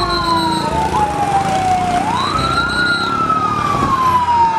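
Fire engine sirens wailing: the loudest siren slides down in pitch, swings back up about two seconds in, then slides slowly down again, while other sirens glide underneath over the rumble of the engines.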